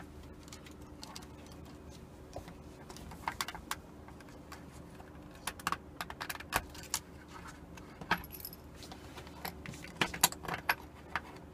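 Irregular clicks, taps and light clattering of small plastic and metal parts being handled and pried at as an alarm clock is taken apart, with a faint steady hum underneath.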